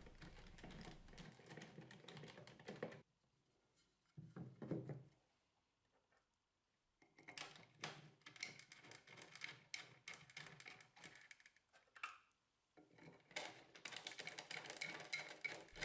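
Faint, scattered clicks and knocks of bolts, washers and a wooden handle being fitted by hand to a plastic concrete mixer body, with a duller thump a little over four seconds in.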